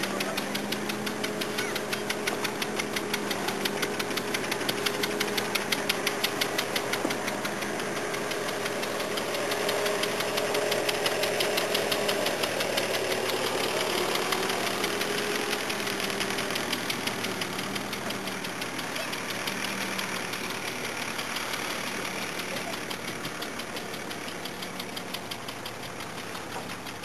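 An engine running steadily, with a fast, even knocking and a low hum, fading gradually in the last part.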